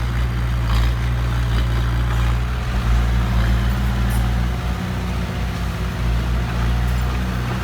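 Heavy vehicle engine running steadily at a low, even drone, like a dump truck or excavator idling.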